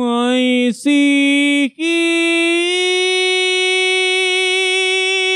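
A single voice singing three rising notes, the last drawn out and held for several seconds with a slight waver.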